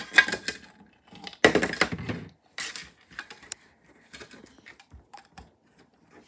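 Toy smoothie fruit pieces clattering as they are poured from a plastic toy blender jar into a small plastic cup, loudest in the first few seconds, then scattered light clicks as the pieces are handled in the cup.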